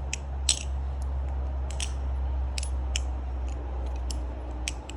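The One Falcon balisong (butterfly knife) being flipped: a string of irregularly spaced sharp clicks and taps as the handles and blade swing around the pivots and land.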